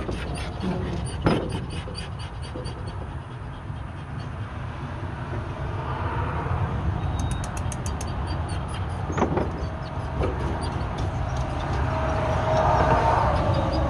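Wire dog crate rattling and clanking as a young pit bull moves around inside it, with a few sharp knocks, the loudest about a second in; near the end the dog climbs up the bars and the crate clatters more. A steady low rumble runs underneath.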